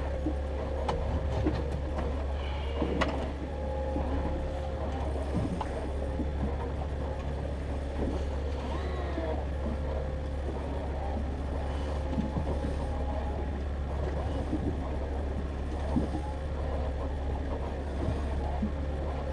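Fishing boat's motor running steadily: a constant low drone with a steady higher hum over it, and a few faint clicks.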